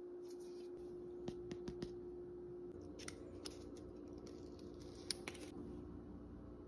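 Paper backing being peeled off the adhesive pads of a plastic paper towel holder bracket, heard as faint crinkles and a few light clicks of handling: a cluster of clicks early, a brief rustle in the middle and two more clicks later. A steady low hum runs underneath.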